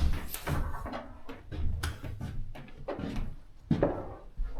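Irregular knocks and clicks with dull low thuds, a few in a few seconds.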